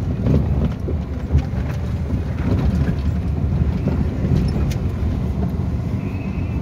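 Proton Wira 1.6 automatic sedan driving slowly over a rough dirt track, heard inside the cabin: a steady low rumble of engine and tyres with scattered clicks and knocks from the bumpy surface, one louder knock about a second in.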